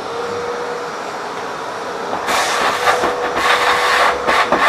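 Vacuum cleaner running with a steady motor whine while its hose nozzle sucks out the inside of an espresso machine's housing. About two seconds in, the suction turns louder and rougher in uneven surges as the nozzle works against the interior.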